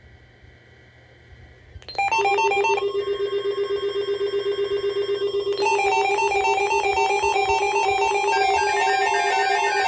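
A synthesized, ringtone-like melody of quick beeping tones over a steady pulsing low note, starting abruptly about two seconds in after a faint stretch.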